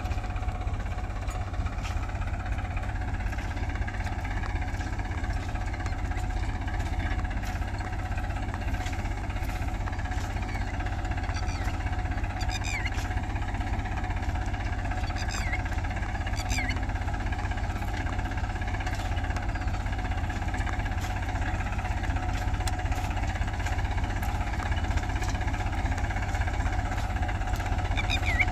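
Farm tractor's diesel engine running steadily as it pulls a seed drill sowing cotton, with a few short chirps in the middle and near the end.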